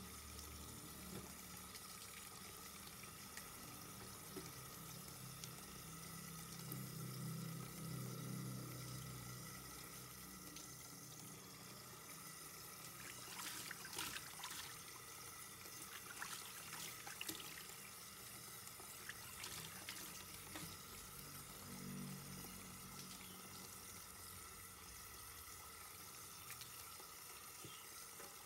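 Faint running water from a tap pouring into a metal bowl in a stainless steel sink. About halfway through come a run of wet clicks and splashes as raw skipjack tuna are gutted and rinsed by hand.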